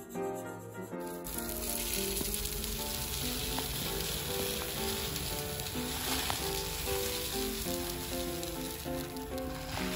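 Uncooked rice grains poured in a steady stream into a plastic container, a continuous dry rushing hiss that starts abruptly about a second in.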